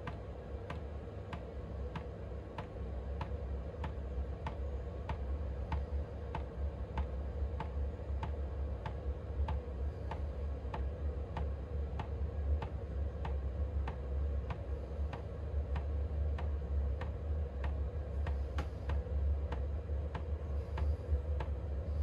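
Chinese diesel heater's fuel dosing pump ticking steadily, just under two ticks a second, over a steady low hum. This is the slow pulse of the start-up cycle as the heater begins to fire from cold.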